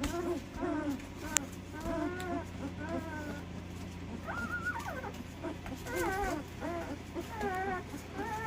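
Newborn puppies, under two weeks old, whimpering and squealing over and over, many short high cries that rise and fall in pitch.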